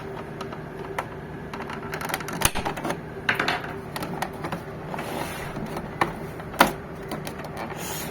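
Plastic clips of an Epson L5190 printer's side cover clicking and snapping as the cover is pried off with a screwdriver: many small irregular clicks, with two sharper snaps about two and a half and six and a half seconds in.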